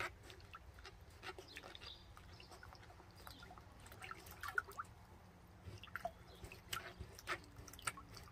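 Light, irregular drips and small splashes of water as a dog noses and paws at the water in a shallow paddling pool.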